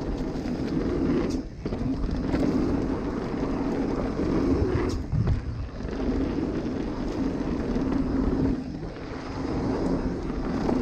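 Mountain bike riding fast down a dirt trail: knobby tyres rolling and rumbling over packed dirt, with a steady wind rush on the microphone. The noise drops away briefly a few times.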